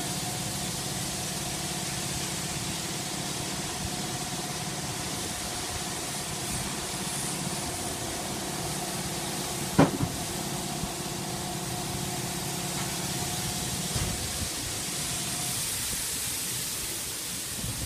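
Steady hum of a feed pellet production line's machinery running, with a constant hiss and a steady tone over it that fades out near the end. A single sharp knock about ten seconds in.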